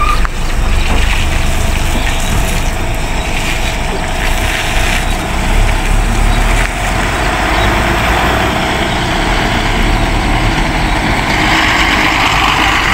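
Diesel engine of a state-transport bus running as the bus backs out of the depot, a steady low rumble. A louder hiss comes in near the end.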